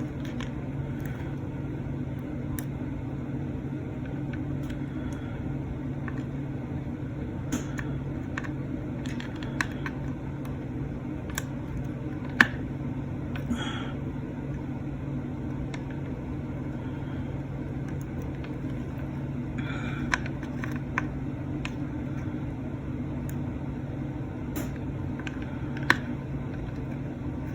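Steady low hum with scattered light clicks and taps of tweezers and a soldering iron on a circuit board during desoldering.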